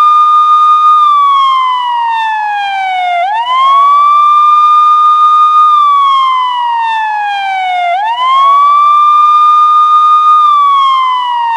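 Police siren in wail mode: a single tone rising quickly, holding briefly at the top, then falling slowly, repeating about every four and a half to five seconds.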